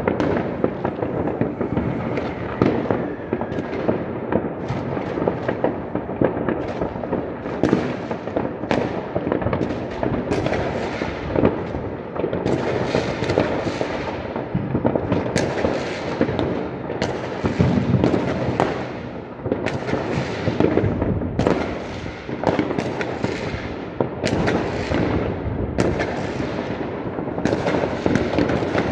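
Many fireworks and firecrackers going off at once across a city: a dense, unbroken crackle with sharper single bangs standing out every second or so.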